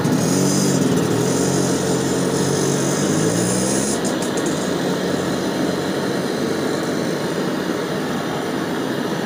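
LPG torch burning with a steady hiss as it heats a makeshift flame-heated soldering tip. For the first four seconds a small engine also runs, its pitch shifting, then stops about four seconds in.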